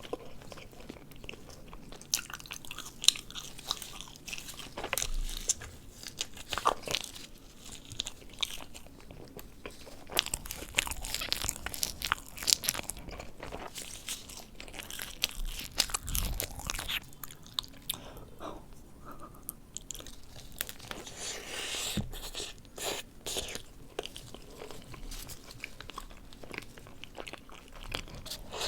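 Close-miked eating: biting and chewing a soft dessert, with many irregular sharp little clicks and wet smacks of the mouth.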